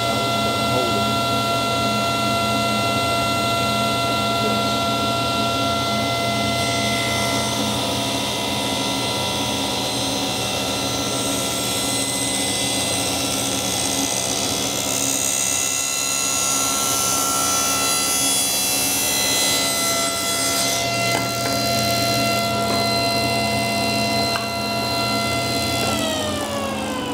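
Table saw running with a dust collector humming underneath, the blade ripping an oak board, with added cutting hiss through the middle. Near the end the saw is switched off and its whine falls as the blade spins down.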